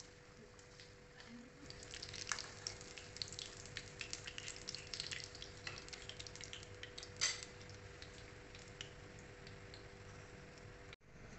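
Hara bhara kababs deep-frying in hot oil in a kadhai, crackling and popping, with one louder click about seven seconds in. A faint steady hum runs underneath.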